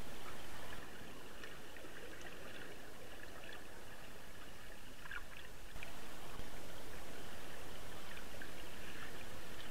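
Flowing river water, a steady rushing hiss with scattered faint clicks and ticks, heard through a camera submerged in the stream.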